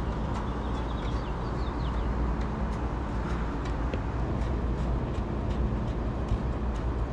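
Steady low rumble of outdoor background noise with scattered light clicks and taps, fitting valve core removal tools being worked on the service valves.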